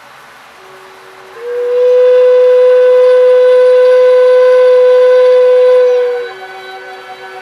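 A single long, steady horn-like tone that swells in about a second and a half in, holds for about five seconds, then stops, over faint steady background tones.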